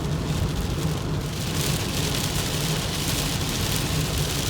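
Rain hitting a moving car, heard from inside the cabin over the steady hum of engine and road noise; the hiss of the rain grows louder about a second and a half in.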